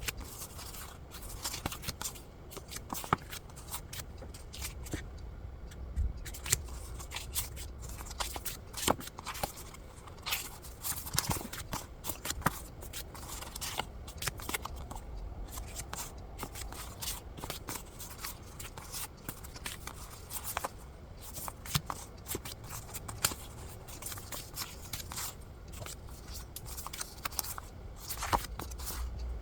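Paper being handled: sheets and pages rustling and flicking, with many irregular small clicks and taps.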